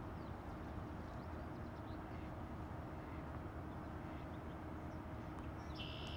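Steady low outdoor background rumble with faint high chirps scattered through it, and a brief high-pitched tone near the end.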